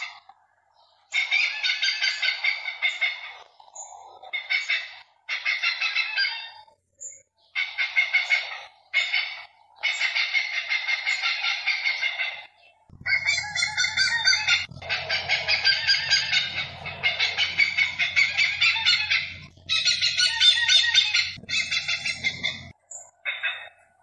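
Hornbills calling: repeated runs of fast, evenly spaced notes, each run lasting one to three seconds, with short pauses between them.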